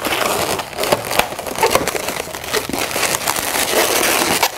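Latex modelling balloons rubbing against each other and against the hands as a black 160 balloon is tied off and worked into a balloon figure: continuous scratchy rubbing with many small quick clicks.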